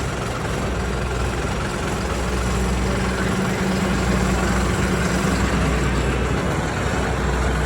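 Heavy pulling-vehicle engine running at a steady low speed, a deep even hum that swells a little midway.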